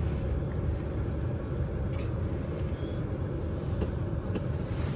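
Car interior noise while driving: a steady low rumble of engine and tyres on the road, heard from the back seat.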